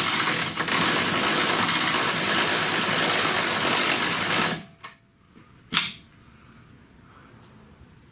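Power tool running steadily and loudly, cutting off suddenly about four and a half seconds in, followed a second later by a single sharp click.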